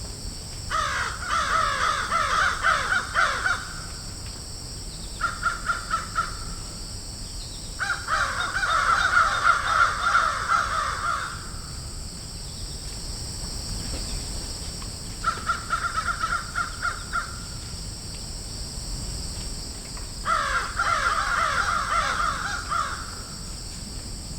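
Crows cawing in five bouts of quick, repeated caws, with pauses of a second or more between them, over a steady high-pitched hiss.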